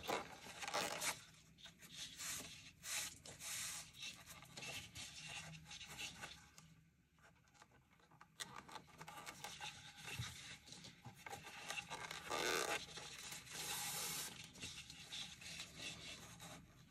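Soft rubbing and rustling of thick T-shirt yarn being pulled through stitches with a crochet hook, in uneven bursts with a short quiet gap partway through.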